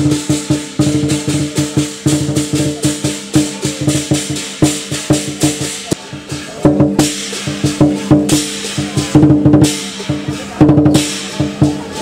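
Chinese lion dance percussion: a large barrel drum beaten in a fast, driving rhythm with clashing hand cymbals ringing over it. The playing thins briefly about six seconds in, then comes back louder.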